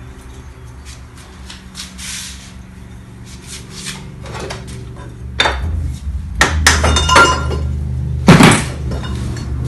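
Metal parts of a Mercedes alternator being worked apart by hand: scattered knocks and metallic clinks over a steady low hum. The knocks grow busier in the second half, with a ringing clink and a sharper knock near the end.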